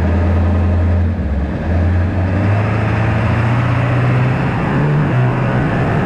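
Ford F-450's 7.3 diesel engine running while the truck is driven, with road noise. The engine note dips briefly about a second in, then rises in steps.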